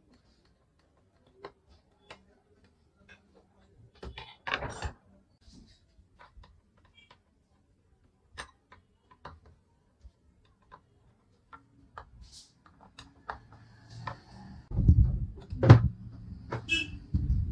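Hand work on harmonium parts at a workbench: sparse small clicks and taps of a tool and wooden and brass pieces. A short cluster of knocks comes about four seconds in, and a louder run of wooden knocks and thuds near the end.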